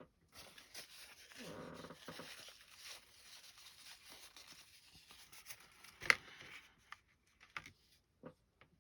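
Small model parts being handled and worked by hand: faint rustling and scraping with a short squeaky scrape early on, then one sharp click about six seconds in and a few small ticks near the end.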